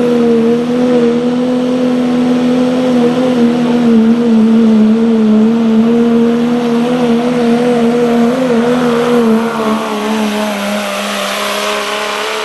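Dodge Ram pulling truck's Cummins diesel engine held at high revs under full load as it drags the pulling sled, with a thin high whistle over the engine note. Near the end the engine eases off, dropping slightly in pitch and getting quieter.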